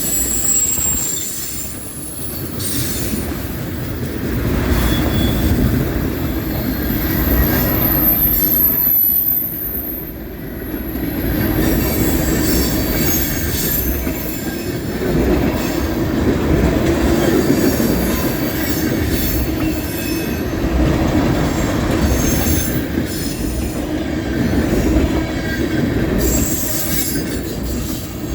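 Freight cars of a long mixed manifest train rolling past close by: a continuous rumble of steel wheels on rail, with high-pitched wheel squeal coming and going, notably near the start, around a third of the way through, and near the end.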